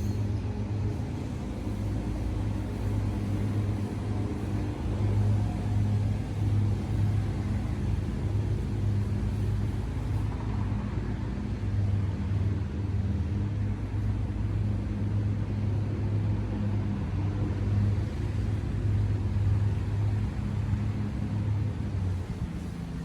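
Steady low machine hum with a constant pitch.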